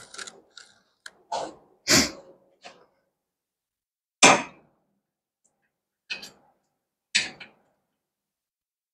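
A string of short knocks and rattles, spaced out with quiet gaps, the loudest about two and four seconds in: a backrest mounting bracket and its bolts and washers being handled and set in place on a motorcycle trike's rear fender.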